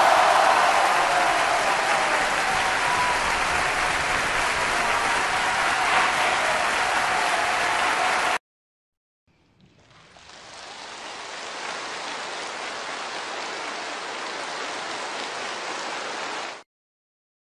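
Crowd applause played as two separate sound-effect clips. The first is loud and stops abruptly about eight seconds in. After a moment of silence a second, quieter applause fades in and also cuts off abruptly.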